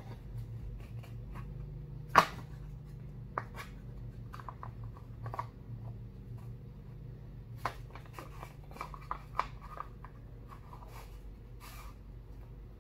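Painted wooden Russian nesting doll (matryoshka) being handled and twisted, its halves clicking and knocking in the hands, with one sharp knock about two seconds in. A steady low hum runs underneath.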